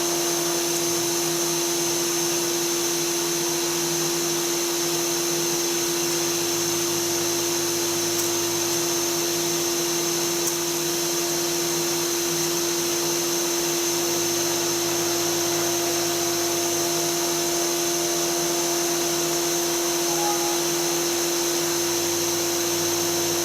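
Spindle motor of a home-built CNC router running at a steady speed with a steady whine while the machine runs a job. A lower hum beneath it changes level every few seconds.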